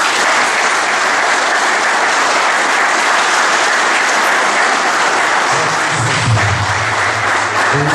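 Audience applauding, a steady, loud clapping.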